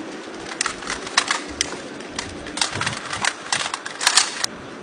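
Kalashnikov rifles fired by a line of shooters out of step: a dozen or more sharp cracks at uneven spacing, some coming in quick pairs.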